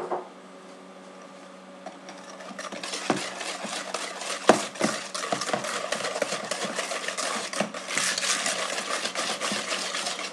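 Wire balloon whisk beating an egg into creamed butter and sugar in a plastic mixing bowl. The whisking starts about two seconds in and goes on as a fast, uneven run of clicks and scrapes as the wires strike the bowl.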